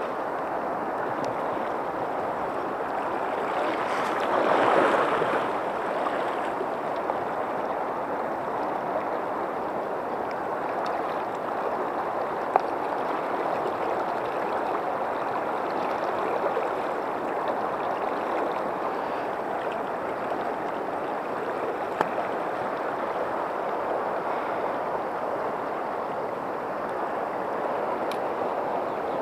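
Steady rush of river water flowing over a shallow riffle, with a brief louder swell of water noise about four seconds in and two sharp clicks later on.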